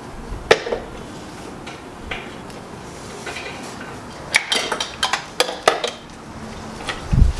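Metallic clinks and taps of hand work on parts in a car's engine bay: a few single clicks, then a quick run of clinks about four to six seconds in, and a dull thump near the end.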